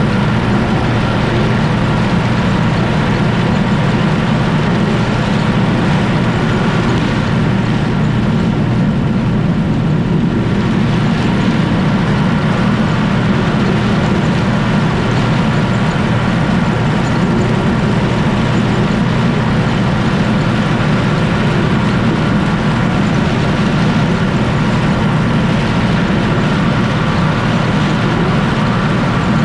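Universal U650 tractor's four-cylinder diesel engine running steadily under load, together with the mounted Zmaj-Zemun 223 corn picker working as it takes in a row of dry corn stalks. The sound is loud and even throughout, with no change in engine speed.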